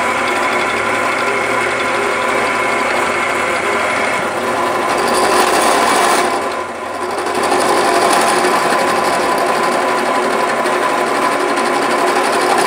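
Old drill press motor running steadily while an end mill grinds a notch into a steel tube held in a drill-press milling vise, a metal-cutting scrape over the motor's whine. The cut eases off briefly about six and a half seconds in, then bites again.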